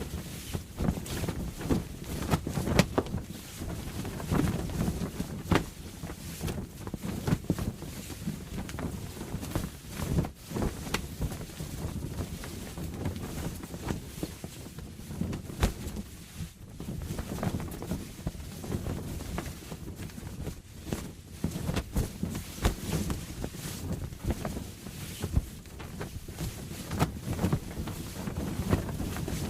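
Canvas sail flapping and snapping in strong wind, with irregular, rapid cracks and flutters over a low rush of wind.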